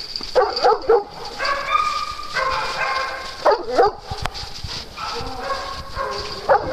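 Dogs barking in two quick clusters, about half a second in and again about three and a half seconds in, with drawn-out high whining calls between and after them.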